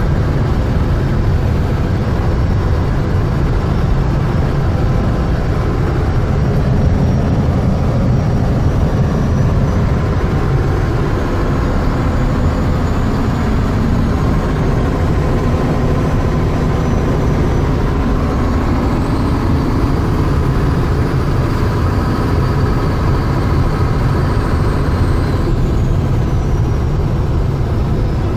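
1978 Mack CF611 fire truck cruising at steady speed, heard inside the cab: its ENDT673 Thermodyne turbo-diesel runs under a heavy, even rumble of engine and road noise. A faint high whine rises about two-thirds of the way through and drops again near the end.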